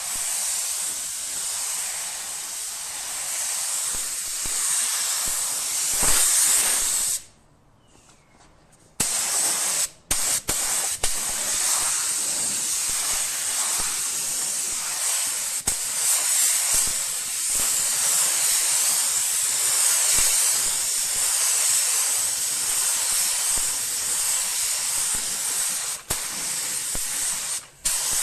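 Gravity-feed paint spray gun hissing steadily as it sprays the first coat of clear coat onto a car body panel. The spray cuts out for about two seconds partway through and briefly a few more times.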